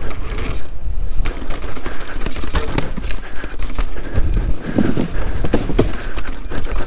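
Canyon Sender downhill mountain bike rattling hard over a rough dirt trail and a wooden plank section: tyres knocking and frame, chain and parts clattering with each bump, over a constant rumble.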